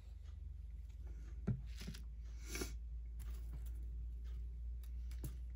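Quiet handling of paper-craft pieces: a sharp tap, a brief rustle and a few faint ticks over a steady low hum.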